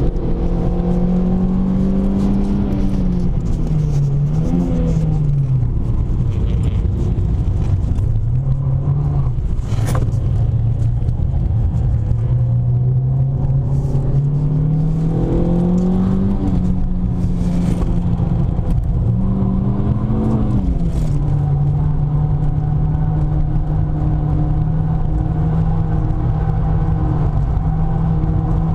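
Renault Clio 3 RS's 2.0-litre four-cylinder engine running hard through an aftermarket Devil silencer and intertube exhaust, holding high revs, then easing off twice, with short rev blips, and pulling back up again. A sharp click sounds about ten seconds in.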